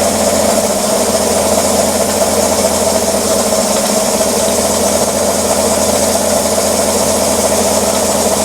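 2014 Chevrolet Silverado's 5.3-litre V8 idling steadily while misfiring on cylinder 6.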